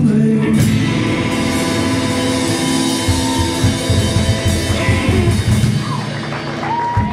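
Live rock band playing: distorted electric guitars over drums and cymbals, the sound tapering off near the end.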